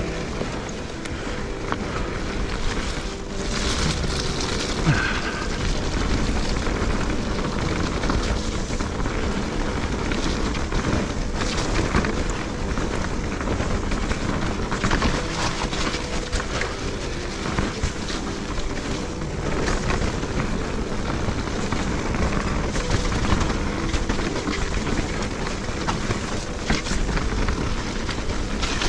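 Electric mountain bike riding over a rough dirt trail: continuous tyre noise with frequent clatters and knocks from the bike, and a faint steady hum underneath.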